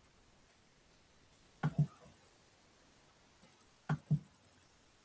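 Two pairs of soft, quick knocks or clicks, one pair about 1.7 seconds in and another about 4 seconds in, over quiet room tone.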